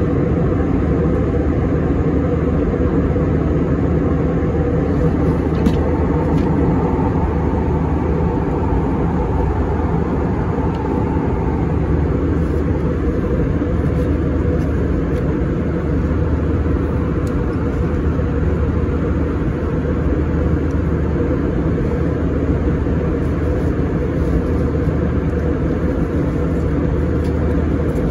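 Steady low drone of an Airbus A321 airliner's cabin in cruise flight: engine and slipstream noise heard from inside the cabin.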